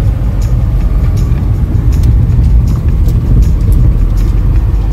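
Nissan Cherry Vanette van driving, heard from inside the cab: a steady low engine and road rumble with a few faint light clicks.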